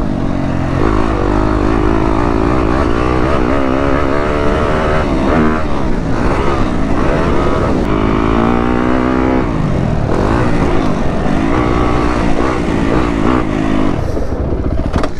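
2015 Yamaha YZ250F's single-cylinder four-stroke engine under a rider on a motocross track, revving up and falling back several times as the throttle is opened and closed.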